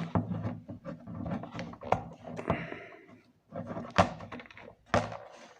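Knocks and clicks of parts being handled and fitted together on a ring light's stand and phone holder, with a sharp knock near 4 s and another near 5 s.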